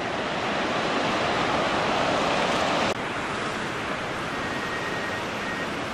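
Surf breaking on the beach, its rushing wash swelling louder for about three seconds, then cutting off suddenly and giving way to a steadier, slightly quieter rush of wind and surf.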